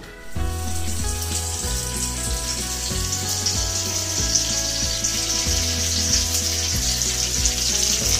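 Tadka sizzling in hot oil in a small kadhai, with mustard seeds, asafoetida and curry leaves frying. The sizzle starts suddenly just after the beginning and grows louder, over background music with steady low notes.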